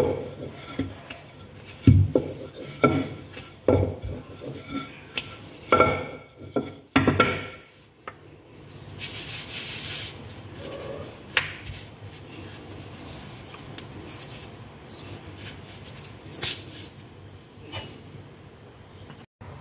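Wooden rolling pin rolling out dough wrappers on a stone counter: a run of knocks and rubbing strokes through the first eight seconds or so. After that comes a brief hiss, then quieter rubbing and light taps as dough is handled by hand.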